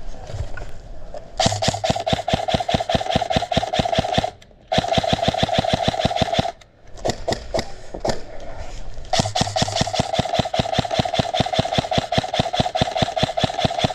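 Krytac Trident MKII CRB-M airsoft electric gun firing full auto: a rapid rattle of shots over the steady whine of its motor and gearbox, in two long bursts, then a handful of single shots, then a long burst near the end.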